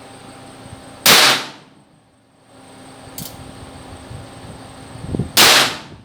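Two shots from a Ruger Bearcat .22 LR single-action revolver, about four seconds apart, each a sharp crack with a brief fading tail. A faint click falls between them.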